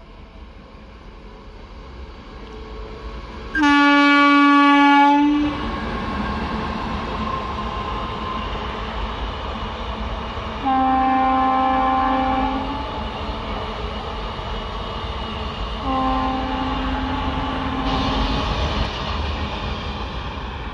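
WAG-9 class electric locomotive sounding its horn three times: a loud blast about four seconds in, then two more a few seconds apart. Under the blasts, the steady rumble and rattle of a container freight train's wagons rolling past.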